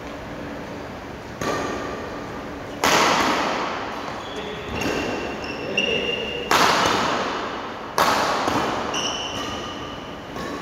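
A badminton rally: racket strings hitting the shuttlecock every second or so, several hard smash-like strikes among them, each ringing on in the hall's echo. Short high squeaks of court shoes on the wooden floor come twice in the middle.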